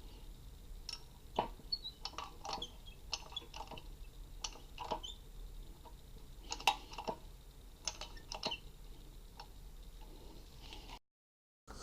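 Scattered light clicks and clinks of small metal parts and tools being handled, irregular and unhurried, with a brief dead-silent gap near the end.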